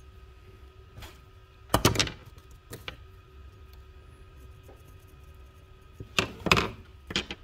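A small metal pick scraping and clicking inside the reservoir of a freshly painted motorcycle brake master cylinder, in short handling clusters: a loud burst about two seconds in and another near the end, with lighter clicks between.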